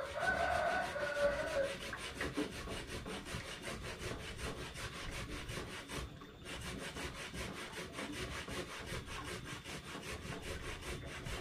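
A spoon scraping round and round a small saucepan as its contents are stirred, a fast even rhythm of strokes several times a second. A brief pitched call sounds over it in the first two seconds.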